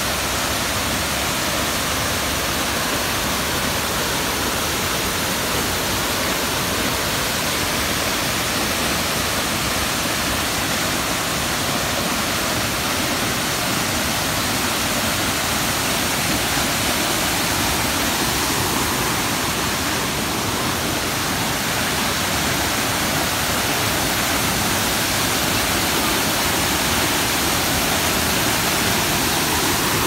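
Dry Falls waterfall on the Cullasaja River pouring over its rock ledge: a steady, even rush of heavy falling water.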